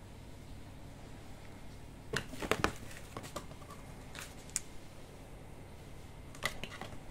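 Light, sharp clicks and taps of a kitten at play with a stick toy on a wooden parquet floor. There is a quick cluster about two seconds in, then a few single taps later.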